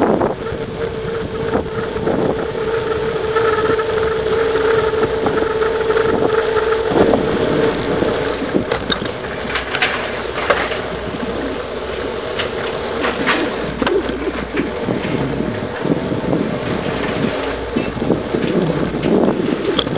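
Wind rushing over the microphone of a camera on a bicycle coasting downhill, with road rumble from the tyres. A steady whine runs through the first part, and a few knocks come in the middle as the bike rolls over bumps.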